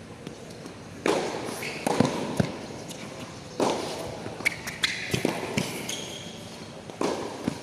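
Tennis rally on a hard court: sharp knocks of the racket striking the ball and the ball bouncing, coming in several quick runs, mixed with the scuffing and shuffling of players' shoes on the court surface.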